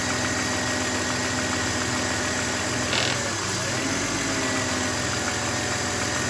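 BMW E39's M52B28TU 2.8-litre inline-six idling roughly, with a misfire and a leak as the owner's complaint, and a short hiss about halfway through.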